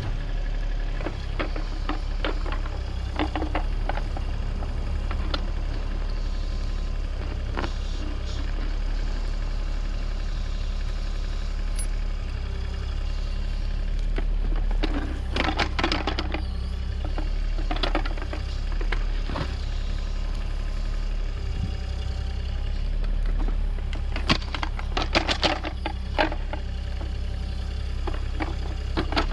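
Mini excavator's engine running steadily while its bucket digs, with scrapes and knocks of soil and stones against the bucket, coming in clusters about halfway through and again near the end.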